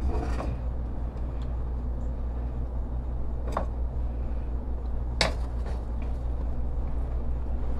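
Wooden spatula stirring penne in a metal pot, with two sharp knocks against the pot, about three and a half and about five seconds in. A steady low hum runs underneath.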